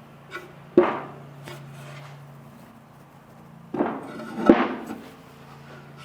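Sharp knocks and clanks of aluminum hardtop parts being handled and set against each other, three main hits with the loudest about halfway through.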